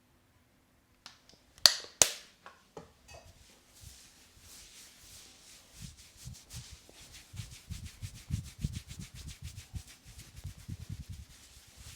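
Two sharp cracks or snaps about two seconds in, followed by a fast, dense run of rubbing and patting strokes from a barber's hands working over the head in a massage.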